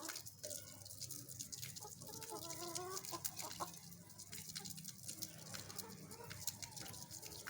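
Golden Misri hen clucking faintly, with one drawn-out call about two to three seconds in and softer clucks later. Light clicks are scattered throughout.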